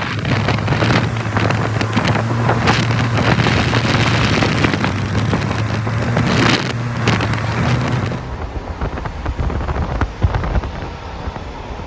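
A steady low motor hum under hiss and wind noise. About eight seconds in it cuts to gusty wind buffeting the microphone.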